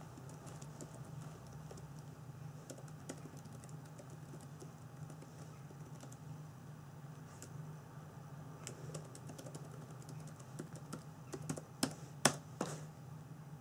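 Typing on a computer keyboard: light, scattered key clicks, with a few sharper, louder clicks near the end.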